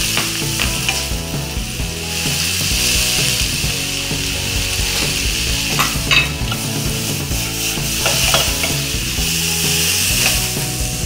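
Chicken, chopped greens and bean sprouts sizzling steadily in a hot wok as they are stir-fried with a wooden spatula, with a few sharper scrapes of the spatula against the pan around the middle and a couple of seconds later.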